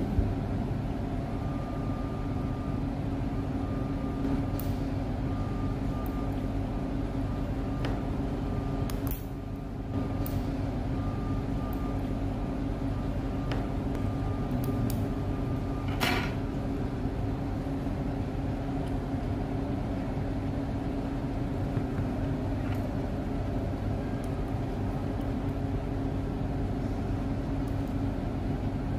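Steady low background hum with a faint high steady tone through the first half, and a few sharp light clicks, the clearest about sixteen seconds in, as metal tweezers work the pins of an engine data entry plug connector.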